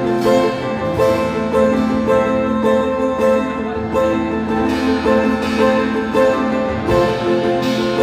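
Instrumental music led by plucked strings, with notes picked in a steady pulse over sustained chords.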